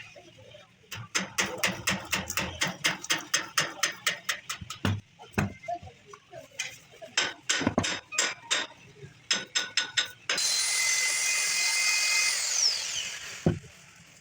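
Rapid, uneven sharp strikes, typical of hammer blows on metal parts, for most of the time. Near the end a power tool runs with a steady high-pitched hiss for about three seconds, then cuts off.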